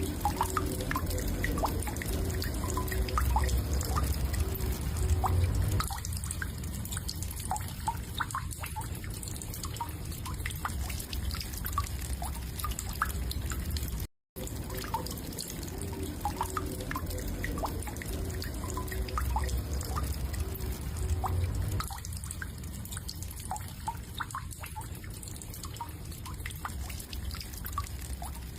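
A recording of a woodpecker, heard as scattered short, sharp plinks and ticks over a low steady hum. The recording cuts out briefly about halfway through and then starts over from the same point.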